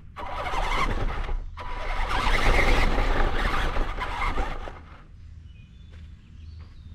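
RC car's motor and gears running hard, with its tyres rolling over grass and dry leaves, heard close up from a camera mounted on the car. The throttle drops briefly about a second and a half in, and the car stops about five seconds in, leaving faint bird chirps.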